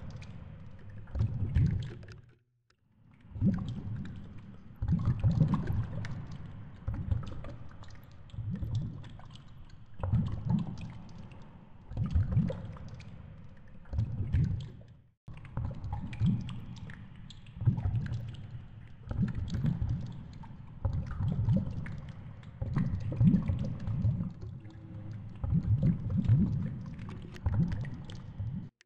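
Muffled underwater noise picked up by a camera in its housing hanging on a fishing line on the seabed: uneven low surges of water movement about once a second, with faint ticks over them.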